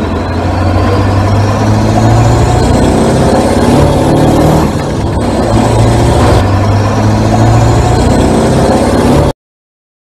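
Vehicle engine sound running steadily, with rising revs that repeat every few seconds. It cuts off abruptly about nine seconds in.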